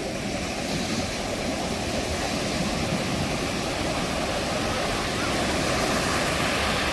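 Ocean surf: a steady wash of breaking waves that swells a little louder over the second half.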